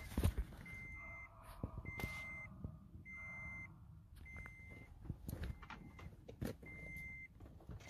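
A pickup truck's warning chime beeping steadily, one short high beep about every second, as it does when a door is left open with the key in. A few faint clicks and taps sound around it.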